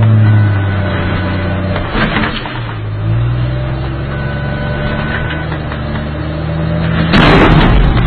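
An armoured bulldozer's engine runs with a steady drone, dropping in pitch about three seconds in. About seven seconds in, a sudden, very loud blast: a car bomb exploding close to the bulldozer.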